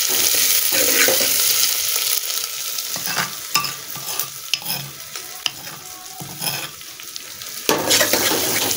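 Garlic-ginger paste frying in hot oil in an aluminium pan, sizzling steadily as a spoon stirs it. The sizzle drops quieter for a few seconds in the middle, with a few sharp clicks, and comes back up near the end.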